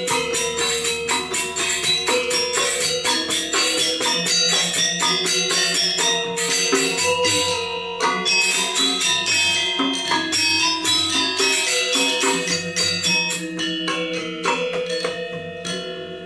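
Balinese gamelan accompanying a Legong dance: bronze metallophones play fast, dense strikes over ringing held tones, with jingling cymbals and an intermittent low hum.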